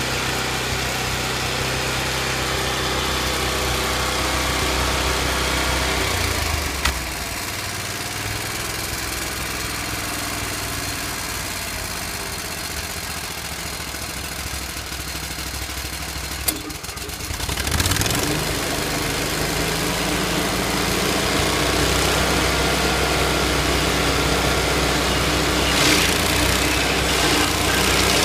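Vermeer SC252 stump grinder running on its 27 hp Kohler engine while its cutter wheel grinds into a tree stump. About six seconds in the engine drops to a lower, quieter pitch. Around seventeen seconds in it revs back up and runs louder again.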